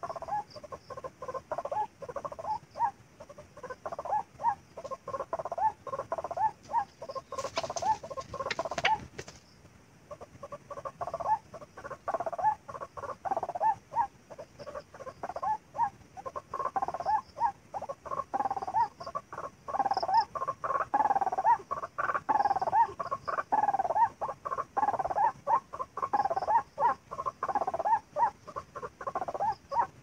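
White-breasted waterhen (ruak-ruak) calling, a chain of rapidly repeated croaking notes. A brief burst of noise about eight seconds in.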